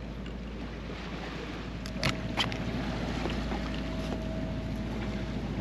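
Steady wind on the microphone and boat background noise at sea, with a low steady hum underneath. Two brief clicks come about two seconds in.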